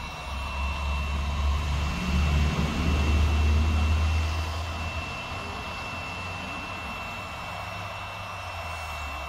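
Dynapac compactor engine running through its freshly overhauled muffler while the exhaust is checked for leaks. It rises to a louder run for a few seconds, then settles back to a steady lower idle about halfway through, with a thin steady high tone above it.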